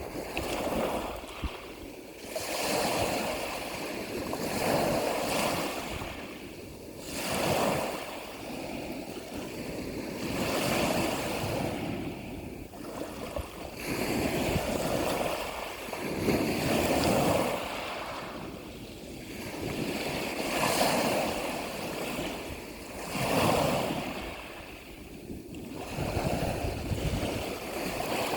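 Ocean waves breaking and washing in, a rushing noise that swells and falls back every two to three seconds.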